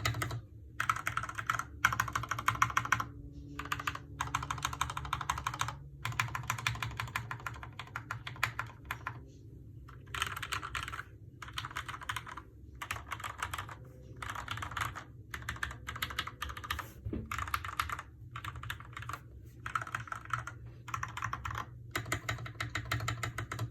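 Typing on a custom 65% mechanical keyboard with lubed Gateron Milky Yellow linear switches: fast runs of keystroke clicks broken by short pauses.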